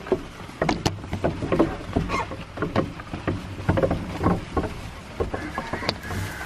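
Goats pulling and eating hay at a slatted wooden hay feeder: dry hay rustling, with many irregular knocks and clatters as they tug at the hay through the feeder.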